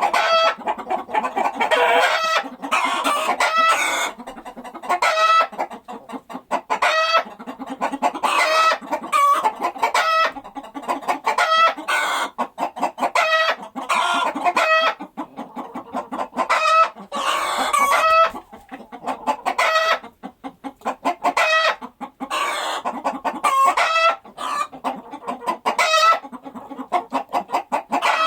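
Domestic chickens clucking in repeated runs of short, pitched calls, several birds at once, with brief lulls between the runs.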